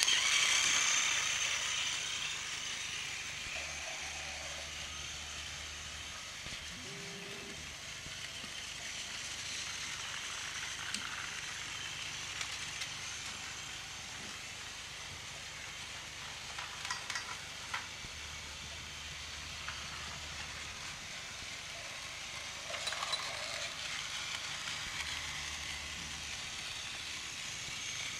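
Battery-powered toy train running along plastic track: a steady high whir from its small motor and wheels, loudest in the first couple of seconds, with a few light clicks now and then.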